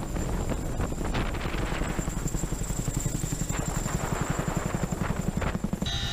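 Helicopter hovering: a rapid, even beat of rotor blades with a steady high whine over it. Near the end the whine drops away and a steadier hum with several fixed tones takes over.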